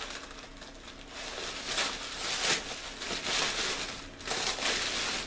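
Package wrapping crinkling and rustling as it is unwrapped by hand, in irregular bursts.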